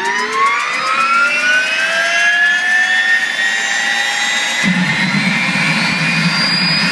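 Rolls-Royce Allison helicopter turboshaft of an MTT Y2K turbine superbike spooling up on start: a whine of several tones that climbs steeply in pitch, then levels off. A steady lower rumble joins in about four and a half seconds in.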